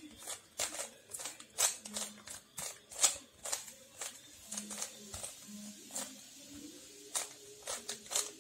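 Plastic Rubik's cube being twisted by hand: quick, irregular clicks and clacks of the layers turning, about two or three a second.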